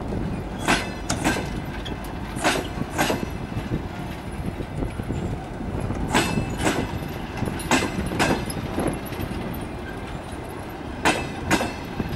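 Passenger coaches rolling slowly past as the train pulls out, their wheels clacking over the rail joints in pairs about half a second apart, over a low rumble.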